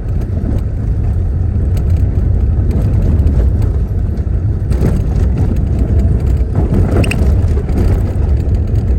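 Road and engine noise of a small car in motion, heard from inside the cabin: a steady, loud low rumble.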